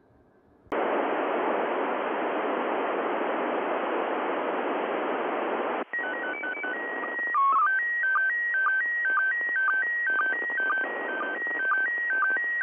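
Radio receiver hiss starts under a second in, then about six seconds in the International Space Station's slow-scan TV (SSTV) signal comes through: a string of steady, stepping beeping tones, briefly dropping lower once, then settling into a regular warble with a short dip about twice a second as the image lines are sent.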